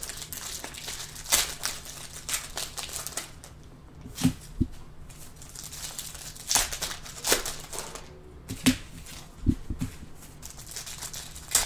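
Foil trading-card packs being torn open and crinkled by hand, with cards slid and shuffled out of them. A few soft knocks, about four, as the cards and packs are set down on the table.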